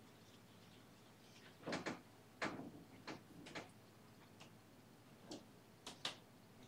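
Short, irregular dry taps and scrapes of an oil-painting brush working paint onto a textured canvas panel, about eight in all, the loudest a close pair a little under two seconds in and another half a second later.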